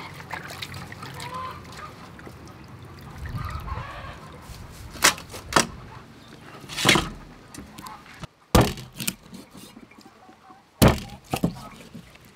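Soft water sloshing as a fish is rubbed clean in a steel bowl of water, then several sharp chops of a heavy cleaver on a thick wooden chopping block, a second or two apart, as the snakehead fish is cut into pieces.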